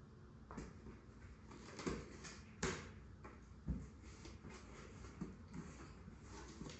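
Scissors and hands working at the taped top of a large cardboard box: faint scraping and rustling, with about five sharp knocks and taps.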